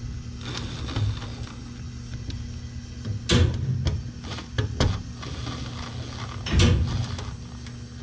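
Cordless driver running in two short bursts, about three seconds in and again near seven seconds, driving the screws that hold a new igniter in a boiler's burner housing, with light clicks of metal handling between. A steady low hum sits underneath.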